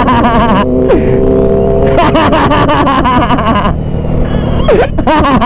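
Basuri aftermarket horn on a Yamaha R6 sport bike sounding a warbling, siren-like "wiu" that is switched on again and again: it ends about half a second in, sounds again for about two seconds from two seconds in, and gives a short swooping blip near the end. Motorcycle engine and riding noise run underneath.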